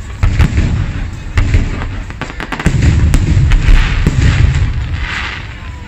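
Aerial firework shells bursting in a rapid barrage: many sharp bangs in quick succession over a continuous low rumble.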